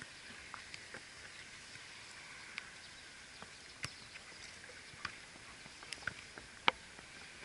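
Irregular sharp knocks of a football being kicked during small-sided play, over a faint steady hiss; the loudest knock comes a little before the end.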